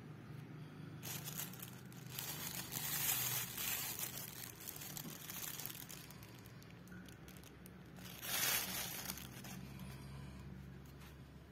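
Thin plastic bag crinkling as a bun is handled and lifted out of it, in two spells: one starting about a second in, a shorter one about eight seconds in. A steady low hum lies underneath.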